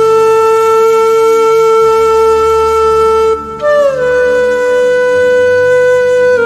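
Background music: a flute-like wind instrument holds long, steady notes over a soft low drone. About three and a half seconds in it moves to a new, slightly higher note that slides down a little before settling.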